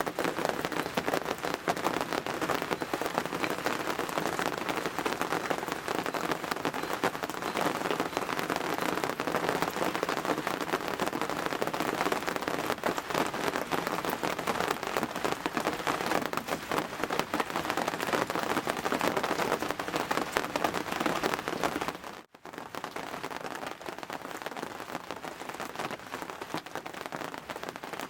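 Heavy rain pouring down in a steady dense patter. About 22 seconds in it cuts off abruptly and carries on somewhat quieter.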